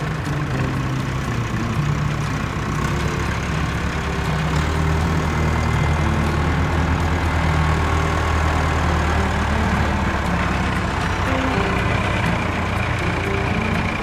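Heavy vehicle engine running steadily with a low hum, a little louder from about four seconds in.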